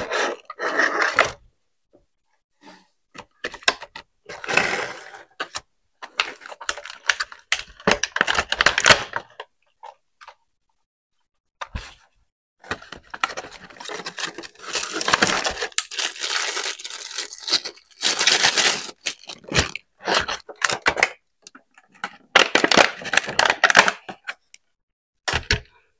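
Packaging being torn open and handled during an unboxing: irregular bursts of tearing and crinkling with a few sharp clicks, broken by short silent gaps.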